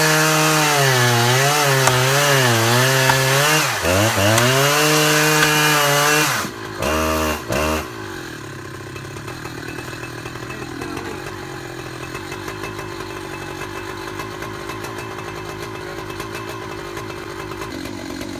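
Chainsaw running at high revs while cutting, its pitch wavering with the load and dipping briefly about four seconds in. About six seconds in it drops off, gives two short bursts of throttle, then settles into a quieter, lower running sound.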